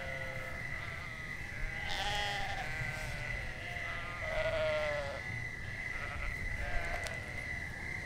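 Farm animals bleating, several wavering calls one after another, with the loudest about two seconds in and again near the middle. Under them run a steady high-pitched tone and a low rumble.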